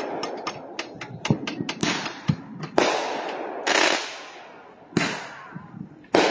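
Consumer-grade aerial firework repeater cake firing. It gives a quick run of sharp pops and reports, then four louder bangs about a second apart as the shells burst overhead.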